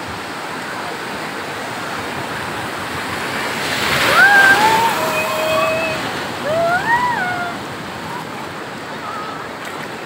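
Sea surf washing over the shallows, a steady rush of water that swells as a wave comes in about four seconds in. A voice calls out twice in the middle, in short rising-and-falling cries.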